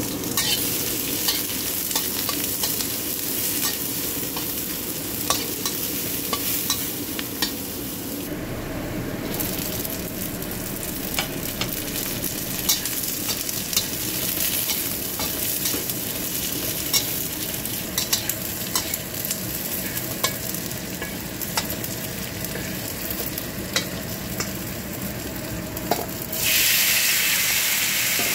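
Garlic, shallots and onion frying in hot oil in a wok, a steady sizzle, stirred with a metal spatula that scrapes and clicks against the pan. About two seconds before the end, the sizzle turns suddenly louder and brighter as raw chicken pieces go into the oil.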